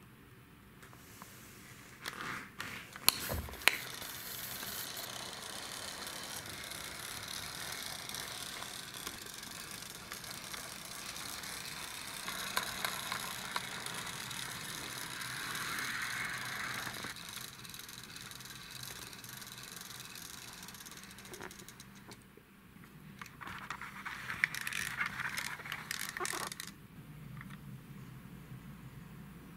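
A die-cast toy car's wheels rolling on a wooden floor as it is pushed by hand: a steady rolling hiss with a few sharp clicks and knocks about three seconds in, then a second, shorter roll later on.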